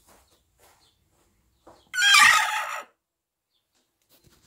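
A chicken's single loud, wavering call lasting about a second, about two seconds in, with faint rustles around it.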